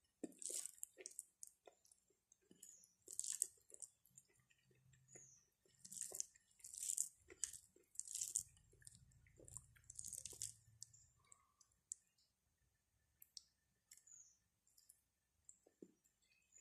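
Quiet close-up eating sounds: a person chewing a mouthful of rice and fried mushrooms, with short mouth noises coming irregularly every second or two.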